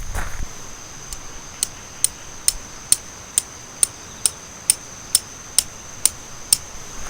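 A run of about a dozen sharp, evenly spaced ticks, roughly two a second, starting about a second in and stopping near the end, over a steady high-pitched tone.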